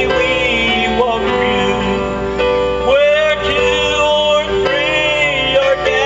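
A man singing into a microphone through a PA, holding long notes with vibrato over instrumental accompaniment.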